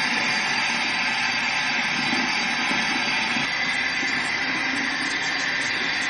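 Bathroom sink tap running in a steady hiss as water is splashed on the face.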